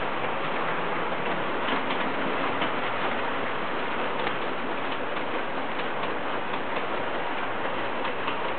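Standard gauge model trains running on the layout: a steady rolling noise with light, irregular clicks of the wheels over the track joints.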